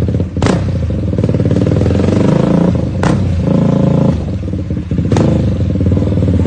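Motorcycle engine running steadily at low speed, with three short sharp clicks over it.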